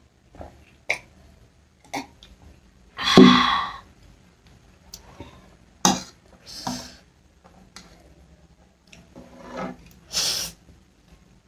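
Close-miked eating sounds from a person eating ramen and momo: scattered short clicks and mouth noises, with one loud throaty burst about three seconds in and a hissing burst near the end.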